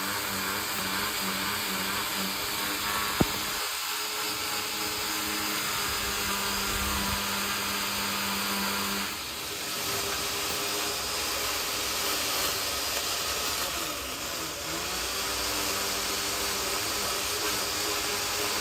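Worx 10-inch electric pole saw's motor and chain running with a steady whine, stuttering on and off at first. About two-thirds of the way through the pitch sags briefly and recovers, as when the chain bites into a limb. A single sharp click about three seconds in.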